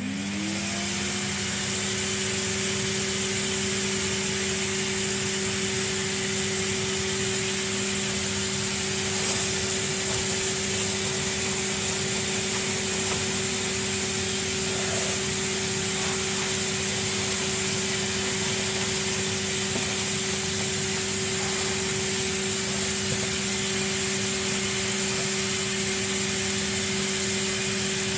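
Vacuum cleaner running steadily after being switched on. The motor spins up to speed in the first second, then holds a steady hum with a high whine over it.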